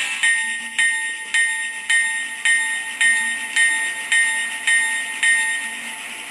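Locomotive bell sound effect from a Phoenix BigSound PB9 model-train sound board, played through a small speaker: about ten evenly spaced rings, roughly two a second, over a steady hiss. The rings stop near the end while the hiss goes on.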